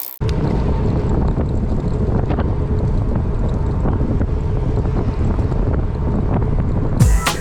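Wind buffeting the microphone: a loud, steady low rumble that starts suddenly.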